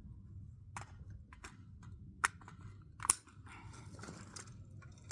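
A handful of sharp clicks and knocks from an AK-pattern rifle and its magazine being handled during a reload, with jacket fabric rustling briefly about three and a half seconds in as the magazine is swept out from under the jacket.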